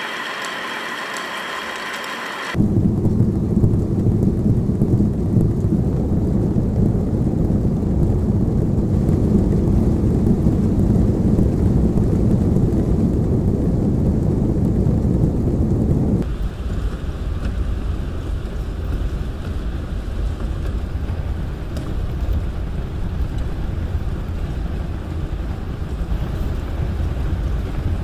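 Kinetic sound sculpture of hundreds of small DC motors rattling inside cardboard boxes, making a dense, rain-like pattering rumble. It opens with a brighter, ringing whirr from wobbling discs that cuts off about two and a half seconds in. About sixteen seconds in, the loud rumble gives way to a lighter, thinner rattle from another cardboard-box installation.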